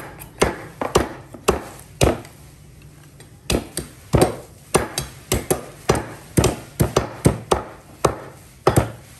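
A heavy butcher's knife chopping through the ribs of a dog carcass on a wooden chopping block. It makes a string of sharp, uneven chops, with a short pause about two seconds in, then quicker strikes.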